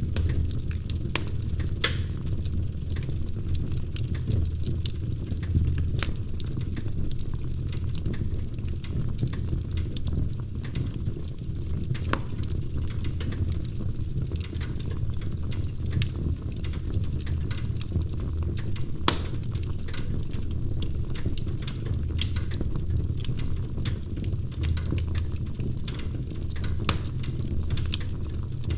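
Wood fire burning in a fireplace: a steady low rumble of the flames with frequent irregular crackles and sharp pops from the burning logs, a few standing out louder.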